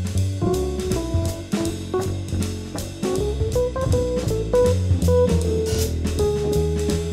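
Jazz trio of keyboard, bass and drum kit playing, the keyboard taking a single-note melodic line over the bass and regular cymbal strokes.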